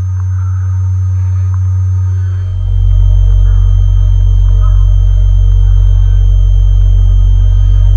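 Loud, steady low electronic drone of a film soundtrack; about two and a half seconds in, a deeper tone joins and it grows louder. Faint scattered blips sound above it.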